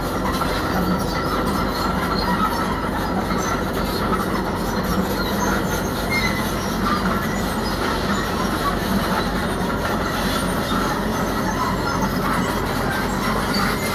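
Heavy crawler machine at work: its diesel engine runs steadily under the continuous grinding clatter of its steel tracks.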